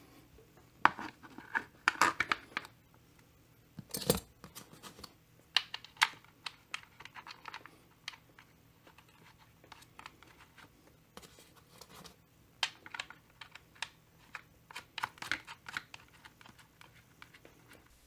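Hands fitting and seating the plastic clutch-side cover on a Stihl 025 chainsaw: irregular clusters of sharp clicks and plastic knocks, with short quiet gaps between them.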